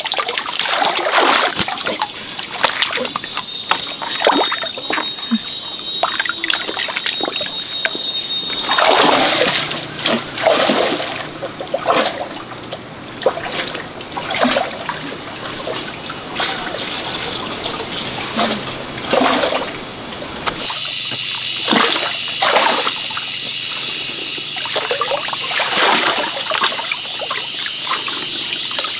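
Water splashing and trickling in a shallow stream, with irregular splashes throughout. A steady high-pitched whine sits underneath and shifts in pitch abruptly twice.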